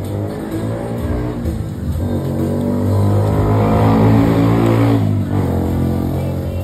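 A motor vehicle's engine passing close by, its hum swelling to its loudest about four seconds in and dropping away about a second later.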